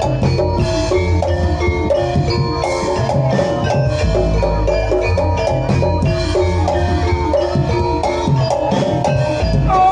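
Gamelan-style dance music: fast runs of mallet-struck tuned metal percussion playing short, quick notes over steady drumming and deep low strokes.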